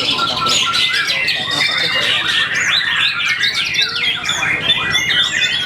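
A songbird singing a fast, unbroken run of varied chirps, trills and whistles, a medley packed with mimicked calls of other birds.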